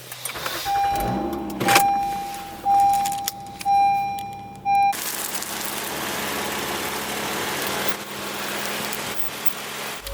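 Keys jangling and a car's electronic warning chime sounding in a steady on-off pattern about once a second, with a knock early on. About five seconds in the chime stops and the car's steady running noise takes over.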